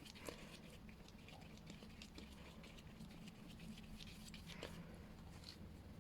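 Faint scratching and a few light ticks of a paintbrush working gouache across paper, over a low steady hum.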